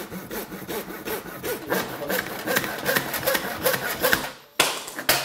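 Hand saw cutting through a luxury vinyl tile (LVT) plank in quick back-and-forth strokes. The sawing stops about four seconds in, followed by two sharp knocks.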